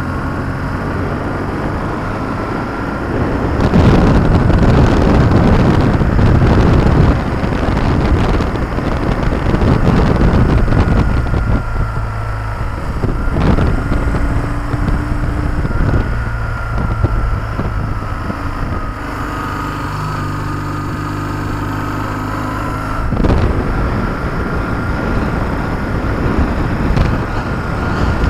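BMW R1150GS Adventure's boxer twin engine running under way, its note shifting as the bike slows and picks up again. Wind rushes over the microphone in gusts, loudest about four to seven seconds in, with a thin high whine over the top.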